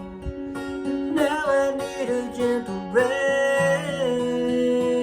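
Acoustic guitar playing under a voice singing a drawn-out wordless melody, with no lyrics.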